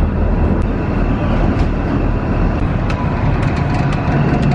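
Car ferry's engines running on board with a steady low rumble, and a run of light taps from footsteps on metal grated stairs in the second half.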